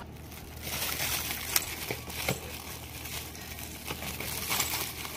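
Clear plastic wrapping crinkling and rustling as it is handled, with a few sharp crackles.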